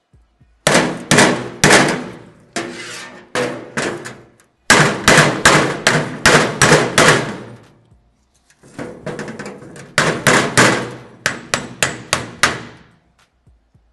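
Hammer blows on the metal casing of a vintage Black & Decker electric drill: four runs of rapid, ringing metal-on-metal strikes, knocking the stuck gear housing loose.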